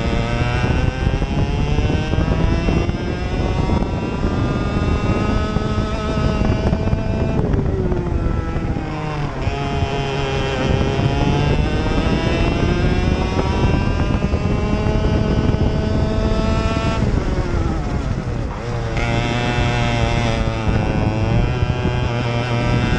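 Racing kart engine heard onboard under hard acceleration, its pitch climbing steadily along each straight and dropping sharply as the throttle is lifted for corners, twice, about seven and seventeen seconds in, before climbing again.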